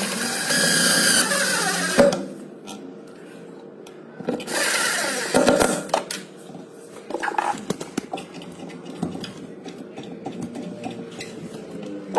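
Small hand-held power tool, such as a drill, running in two bursts of about two seconds each, its pitch sagging as it works, with light knocks and clicks between and after.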